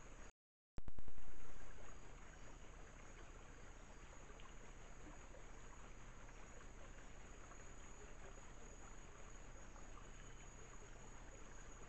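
Trail camera's own recording of a rocky night-time stream: a steady hiss of trickling water with a thin high insect drone. About half a second in the sound drops out briefly, then comes back as a louder rush for about a second before settling to the steady hiss.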